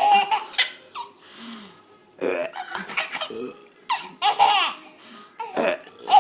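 A baby laughing in several separate bursts of high-pitched giggles.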